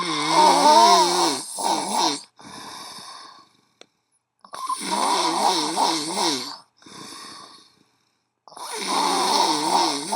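A sleeping person snoring very loudly: three long rasping snores of about two seconds each, their pitch wavering, each followed by a softer breath, in a steady cycle of about four seconds.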